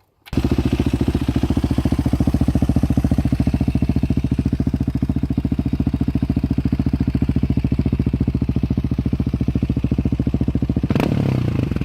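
Husqvarna 701 single-cylinder motorcycle engine firing up and idling through an Arrow slip-on exhaust with the baffle removed, a loud, evenly pulsing idle. A short, sharper noise sounds near the end.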